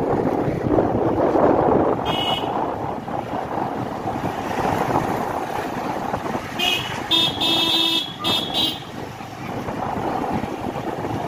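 Riding on a motor scooter: steady wind and road noise, with a two-wheeler's horn giving one short beep about two seconds in and a run of several beeps between about seven and nine seconds in.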